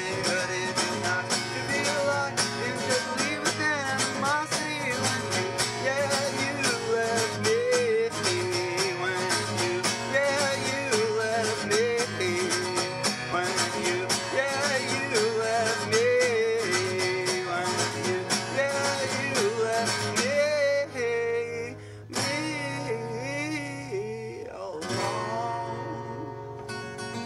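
Acoustic guitar strummed steadily, with a man singing over it. About 22 seconds in it drops briefly quieter, then the strumming picks up again.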